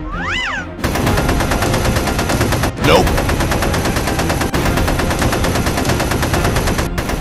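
Rapid automatic gunfire sound effect: a continuous stream of shots that starts about a second in, breaks off briefly about three seconds in, and stops just before the end. It is preceded by a short whistle-like tone that rises and falls.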